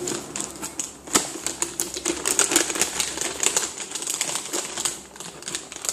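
Plastic cat-treat bag being handled and rummaged through: a quick, uneven run of crinkling clicks, with one sharper click about a second in.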